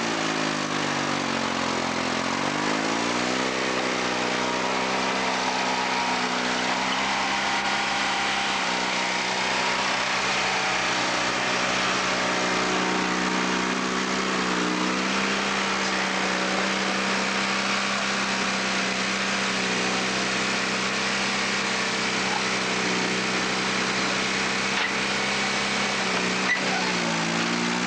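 Allis-Chalmers HD5 crawler loader's Detroit Diesel 2-71 two-stroke engine running steadily as it works, its pitch dipping and climbing again near the start, midway and near the end.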